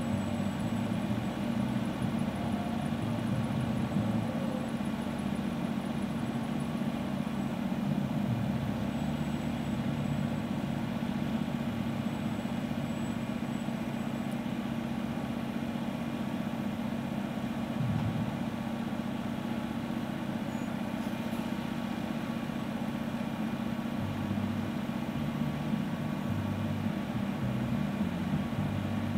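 Vehicle engine running at a steady low hum, its pitch not rising or falling.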